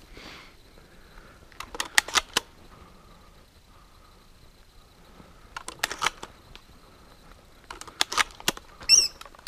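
Footsteps crunching through dry fallen leaves and twigs in three short runs of a few steps each, with pauses between. A short high chirp comes near the end.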